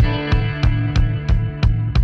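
Background music starting abruptly: guitar with a steady drum beat, about three hits a second.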